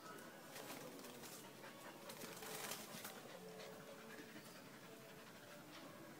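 Faint sounds of pit bull puppies play-fighting: short whines and scuffling, busiest about two to three seconds in.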